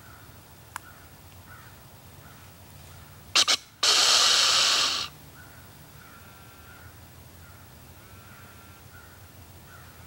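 A whitetail deer snort-wheeze, the buck's challenge call: about three and a half seconds in, two short sharp snorts through the nose, then a loud drawn-out hissing wheeze of about a second.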